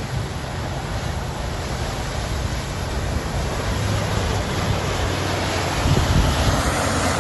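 Wind rushing over the microphone over the low drone of a Toyota Land Cruiser's engine and water splashing as the truck drives through shallow floodwater, the engine getting a little louder as it comes close in the second half.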